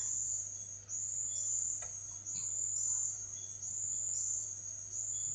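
A high-pitched insect trill, repeating in runs of about a second with brief breaks between them, over a faint low steady hum.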